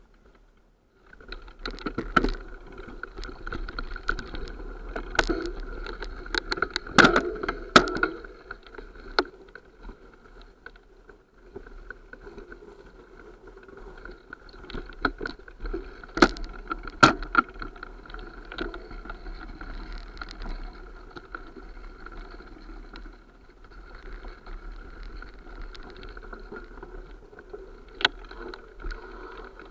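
Mountain bike rolling over a rough forest trail: a steady rattle and rumble from the bike and its mounted camera, with sharp knocks as it jolts over bumps. It starts about a second in, and the strongest jolts come about seven, eight and seventeen seconds in.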